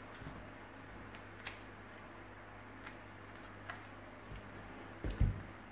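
Scattered light clicks and taps from the plastic and metal parts of a hammer drill being handled and worked apart, then a louder double knock about five seconds in.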